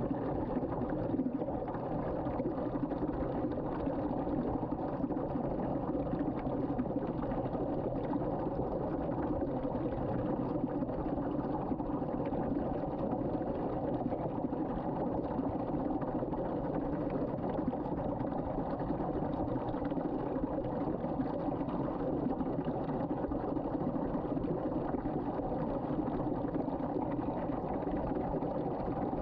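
Water swirling down a sink drain in a whirlpool vortex: a steady, low rushing drain noise that does not let up.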